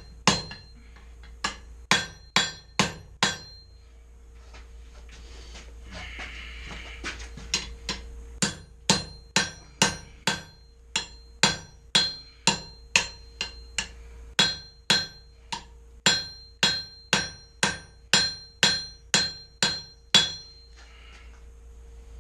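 Blacksmith's hand hammer striking hot steel bar on an anvil, drawing the bar out into a tapered axe eye drift. Each blow rings. There is a quick run of five blows, a pause of about four seconds, then a steady run of about two blows a second.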